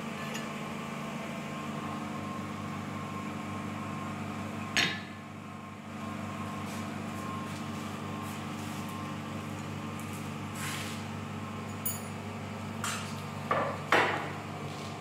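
Steady workshop hum with a few scattered metal clanks of steel tools on an anvil: one loud ringing clank about five seconds in and a short cluster of clanks near the end.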